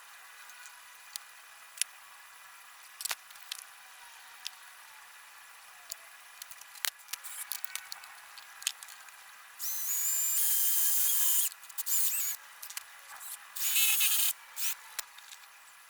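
Handheld power drill running in two short bursts, the first about two seconds long with a whine that rises as the motor spins up, the second under a second. Before them come scattered small clicks and taps of hand work.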